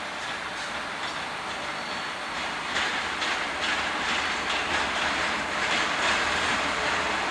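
Electric freight train on the Tokaido Line approaching and running past, growing steadily louder; from about three seconds in its wheels click over the rail joints in quick repeated beats.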